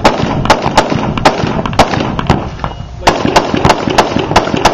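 Rapid semi-automatic gunfire: about five quick shots, a pause of about a second, then about six more in fast succession.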